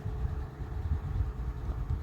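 1983–84 Galaxy 20-inch box fan running on low speed: a steady rush of air with an unsteady, fluttering low rumble that grows louder at the start.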